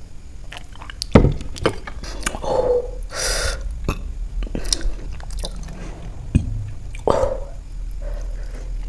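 Close-up mouth sounds of eating and drinking: swallowing, lip smacks and small wet clicks. About a second in there is a sharp knock, a glass jar set down on a wooden board, and about three seconds in a breathy exhale.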